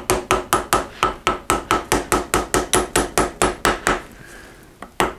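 Hammer lightly tapping the shock's main cap into the shock body, a quick, even run of about five taps a second, each with a short metallic ring. The taps stop about four seconds in and start again at the end.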